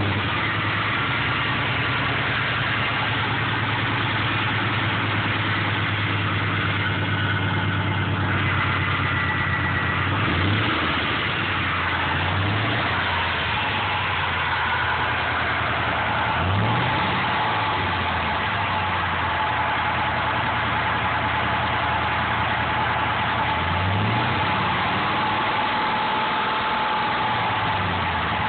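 Engine idling with its drive belt fitted, just after starting. A few brief swells in pitch come and go, and a steady high whine grows stronger from about halfway.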